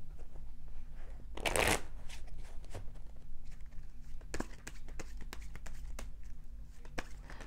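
A deck of tarot cards being shuffled by hand: a short rush of sliding cards about a second and a half in, the loudest moment, then a string of quick light card clicks and flicks.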